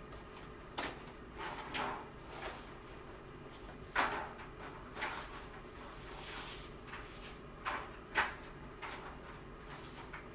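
A series of kitchen handling sounds: about ten irregular knocks and clatters, like cupboards, drawers or dishes being moved and set down, with the sharpest knocks about four and eight seconds in.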